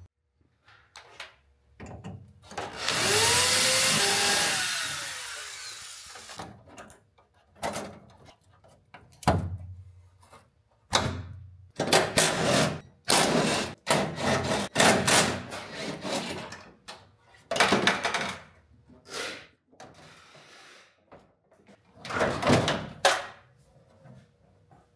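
Hand-held power tool run in one long burst, its pitch rising and falling, followed by a series of short bursts, as fasteners are driven out.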